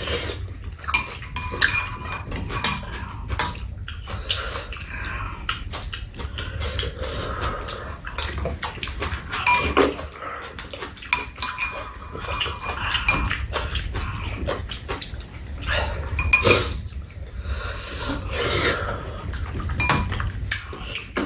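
Metal spoons clicking against bowls, with slurping and chewing, as two people eat hot kimchi sujebi soup.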